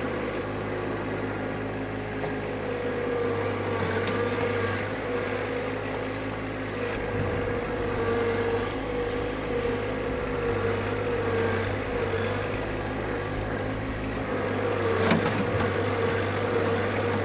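John Deere 1025R subcompact tractor's three-cylinder diesel engine running steadily, with a wavering higher whine over the engine note. A single sharp knock about fifteen seconds in.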